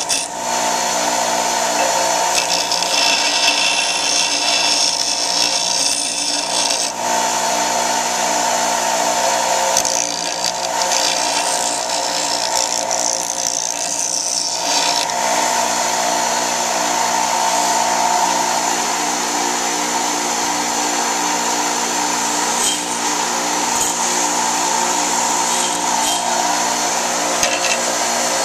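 Black & Decker 6-inch bench grinder with a 1/3 HP induction motor running steadily while the mushroomed end of a drawknife's rat-tail tang is ground off against the wheel. The grinding noise swells and eases, strongest twice in the first half.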